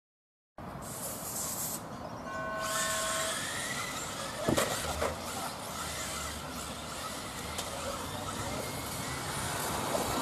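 1/10-scale electric RC touring cars running laps, a steady hiss of motors and tyres on asphalt. A short steady beep about two seconds in and a sharp click a couple of seconds later.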